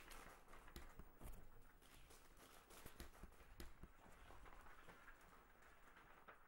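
Near silence: a faint hiss with scattered, irregular faint clicks and taps.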